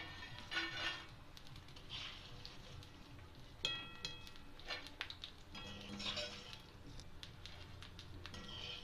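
Wire-mesh spider strainer scraping and tapping against a steel kadhai while fried gond is scooped out of the ghee, with scattered light clinks. One knock about three and a half seconds in sets the steel ringing briefly.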